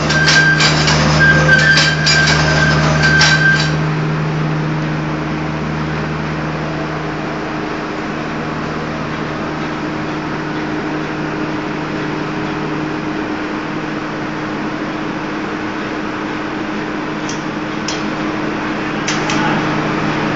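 Gabion (hexagonal wire netting) machine running with a steady hum. For the first four seconds there are rapid metallic clicks and a high whine over the hum. A few clicks return near the end.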